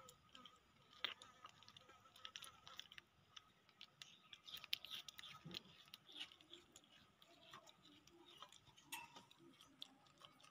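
Faint, scattered clicks and light taps of baby monkeys moving about in a small wire cage, over near silence.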